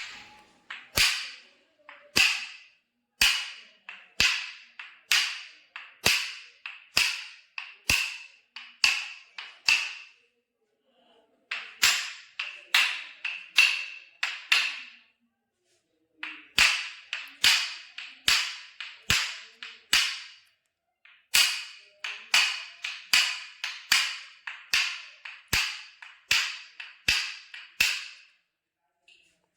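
Runs of sharp strikes, each ringing briefly, about one to two a second. Short pauses fall between the runs.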